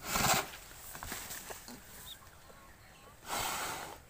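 Restrained water buffalo blowing out two loud, heavy breaths through its nose, one right at the start and another about three seconds in, with faint small clicks between.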